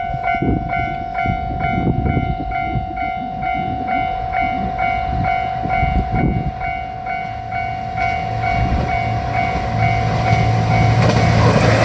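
Japanese level-crossing warning bell ringing at about two strikes a second while a diesel limited express train passes close by, its wheels clattering over the rail joints. Near the end the bell stops and the train's engine drone and rushing noise grow louder.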